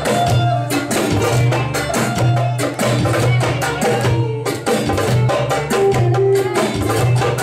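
Music with a fast, busy percussion beat over a steady bass line.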